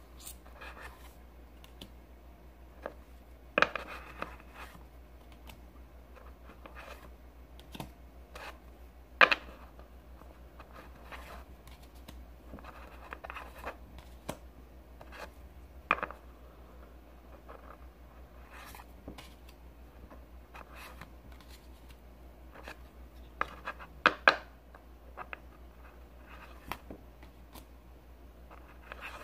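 Pokémon trading cards being handled one at a time: scattered soft scrapes and rubs of card stock, with a sharp click now and then, loudest a few times about 9, 16 and 24 seconds in. A steady low hum lies underneath.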